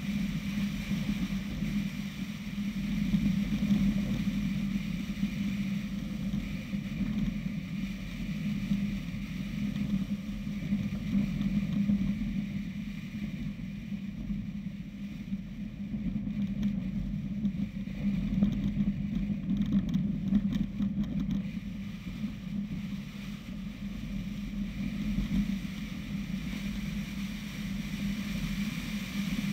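Subaru car driving along a rough dirt trail: a steady engine drone with tyre and road rumble, swelling and easing in loudness every few seconds.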